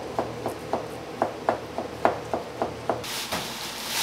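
Kitchen utensil knocking in a steady rhythm, about four strikes a second, then a steady hiss that starts suddenly near the end.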